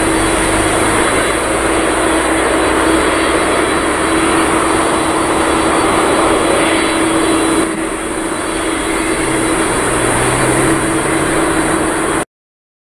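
Jet engines of a Boeing twin-jet airliner at take-off thrust during lift-off and climb-out, a loud, steady roar with a steady hum in it. The roar cuts off suddenly near the end.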